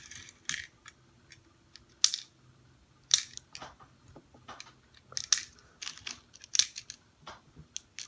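Airsoft BBs being loaded into an airsoft gun's magazine: an irregular series of sharp little clicks and rattles.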